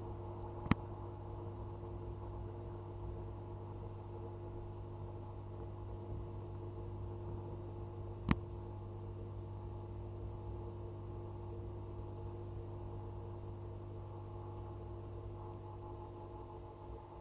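Steady low hum with several held tones from the aquarium's running equipment, with two sharp clicks, one about a second in and one a little before the middle.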